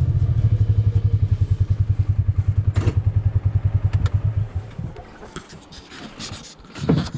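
Side-by-side utility vehicle's engine running with a fast, low, pulsing throb, then stopping about four and a half seconds in. A couple of sharp clicks and a knock near the end follow.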